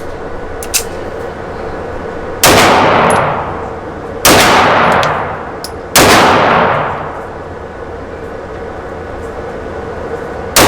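Three pistol shots about two seconds apart, each ringing out with a long echoing tail, then another shot right at the end.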